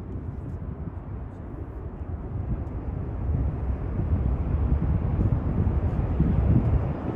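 Boeing F-15QA fighter's twin jet engines rumbling during a flying display, the sound growing louder from about three seconds in and easing off near the end.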